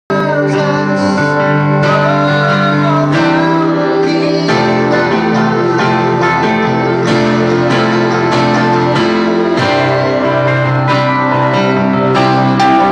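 Mandolin strummed in a band rehearsal, its chords over long held low notes from another instrument that change every second or two.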